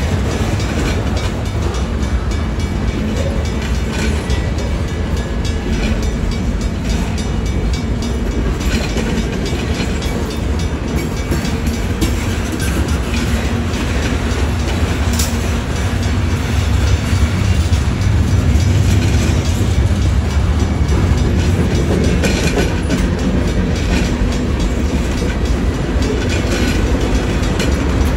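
Freight cars of a Union Pacific manifest train rolling slowly past: a steady low rumble with scattered clacks from wheels on rail joints. It grows slightly louder about two-thirds of the way through.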